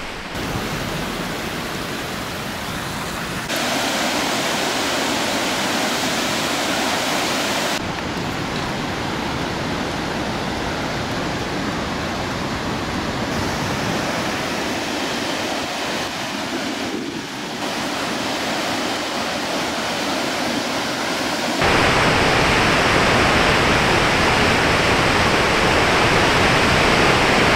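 Water pouring down a dam's stone spillway: a steady rush of falling water that changes level at a few points and is loudest from about three-quarters of the way in.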